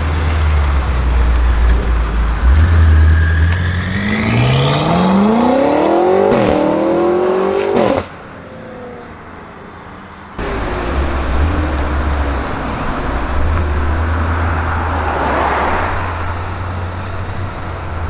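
BMW M5 F90's twin-turbo V8 with a SuperSprint exhaust, running with a deep rumble and revving up in a rising sweep of pitch from about four seconds in. The sound falls away abruptly about eight seconds in and comes back about two seconds later at a steady run.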